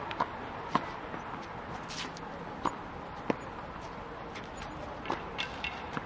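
Squash ball being struck by racket and hitting the court walls during play: about eight sharp smacks at uneven intervals, several in quick succession near the end, over a steady hall background noise.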